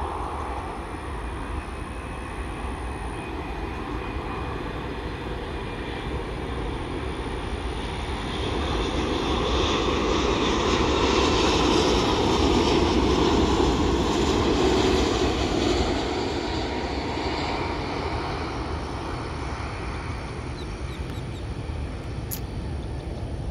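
Twin-engine jet airliner on final approach: a steady engine rumble that swells as it passes low overhead about ten seconds in, then eases as it descends toward the runway.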